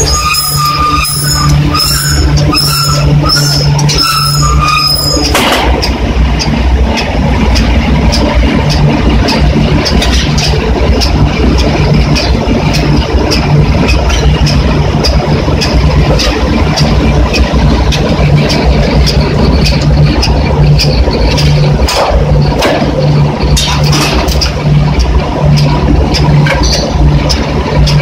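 Forging press and shop machinery running loudly during hot die forging of hooks: a steady low hum with frequent metal clanks and knocks. A repeating high squeal sounds through the first five seconds or so.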